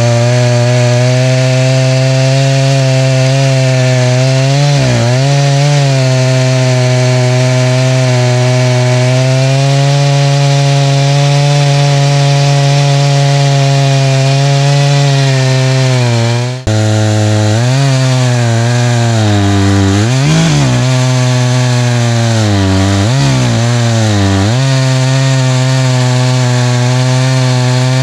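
Echo CS590 Timberwolf two-stroke chainsaw running at full throttle while milling a black ash log into slabs. It holds a steady high engine note that sags in pitch several times as the chain bogs in the cut, with a momentary break about two-thirds of the way through.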